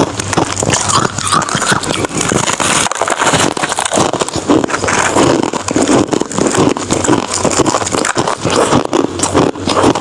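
Ice being bitten and chewed, with dense, continuous crunching and crackling.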